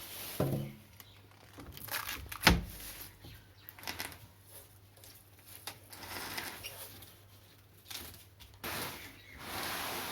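Scattered clicks and knocks, with one sharp knock about two and a half seconds in and a stretch of rustling near the end.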